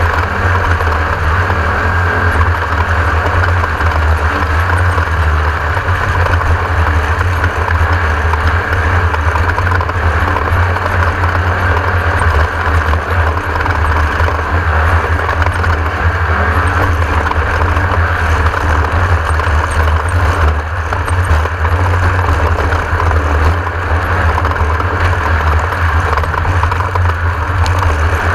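Class 1600 off-road race car's air-cooled flat-four VW engine running steadily, with a constant heavy low drone.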